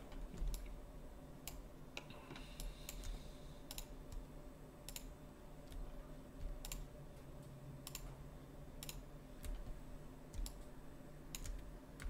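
Computer keyboard keys and mouse buttons clicking sparsely and at irregular intervals, over a faint steady hum.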